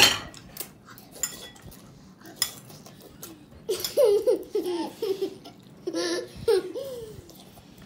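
Young children giggling while they eat soup noodles, with short clinks of forks and spoons against ceramic bowls. The giggling comes in bursts from about halfway through.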